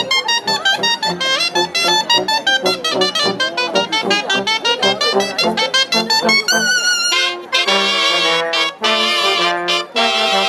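A cobla, the Catalan wind band of shawms and brass, playing a sardana. A fast run of short, bright notes gives way about seven seconds in to long held brass chords with vibrato.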